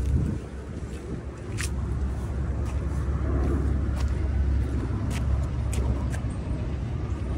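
Steady low rumble of city street ambience, with a few short sharp clicks over it.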